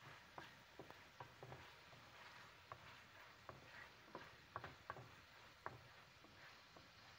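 Chicken breast strips and onion frying in a pan: faint sizzling with irregular small ticks and pops. A wooden spatula stirs the pieces near the end.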